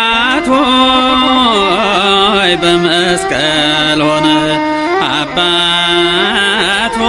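Male voice singing an Ethiopian Orthodox mezmur (hymn) in Amharic, in long, ornamented, wavering melodic lines over a steady sustained accompaniment. The sung line changes about four seconds in.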